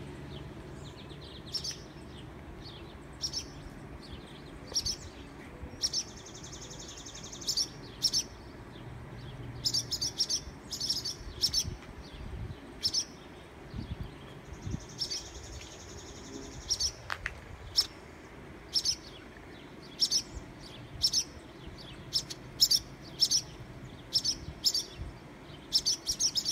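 Barn swallows giving sharp, repeated alarm calls as they dive at people near their nest, with two longer chattering stretches about six and fifteen seconds in.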